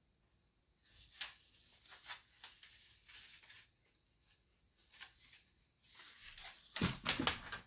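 Handling noise: intermittent rustling and rubbing of plastic, with a louder cluster of clattering near the end.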